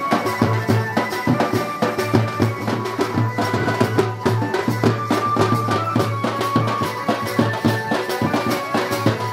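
Music with a fast, steady drum beat and held melody notes over it.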